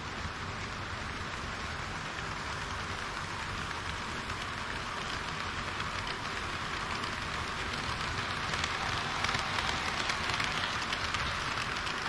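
HO-scale model train rolling along the track, its wheels making a steady rushing hiss that grows louder in the second half, with faint ticks.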